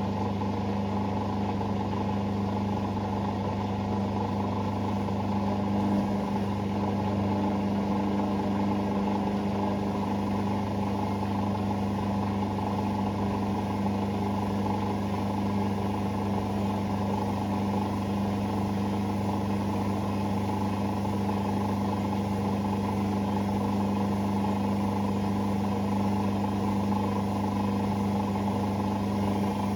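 Hoover Sportswear 1300 washing machine running with a steady motor hum that holds one pitch throughout.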